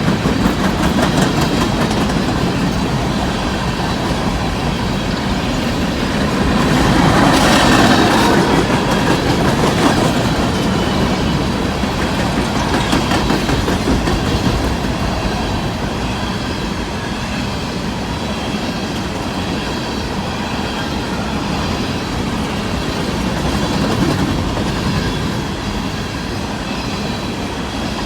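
An empty coal train rolling past at speed: steady wheel-on-rail rumble with clickety-clack from the cars, swelling briefly about seven seconds in.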